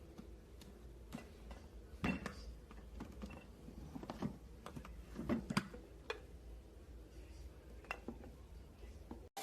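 Scattered light clicks, clinks and knocks of hard objects being handled, with sharper knocks about two seconds and five and a half seconds in.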